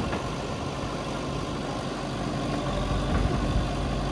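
Heavy diesel engine of a tractor or backhoe loader running steadily at a low, even speed.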